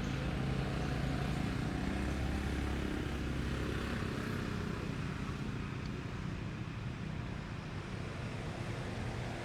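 A motor vehicle engine running with a steady low hum.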